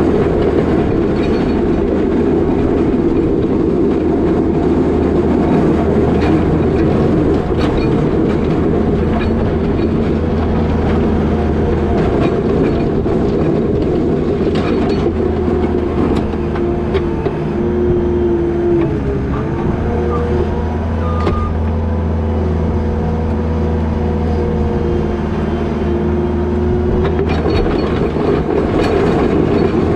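New Holland L220 skid steer's diesel engine running steadily under load, with a hydraulic whine that comes and goes through the middle stretch and scattered clanks from the machine and its box plow.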